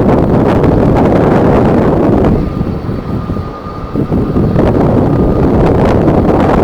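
Strong wind buffeting the microphone, mixed with the steady noise of a jet airliner. The wind eases briefly about halfway through, then picks up again.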